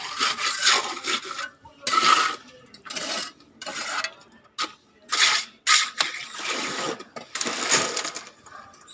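Steel trowel scraping and working wet concrete along the top of a steel formwork: a dozen or so short, gritty scrapes with brief pauses between them.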